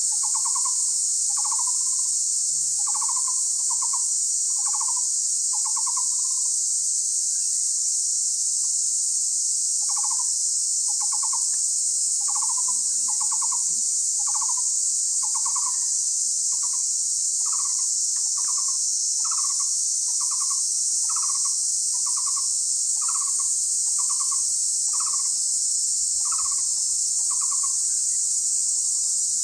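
An animal's call: short trilled notes at one pitch, repeated more than once a second, stopping for a few seconds about a third of the way in and then going on. A steady high insect drone runs underneath.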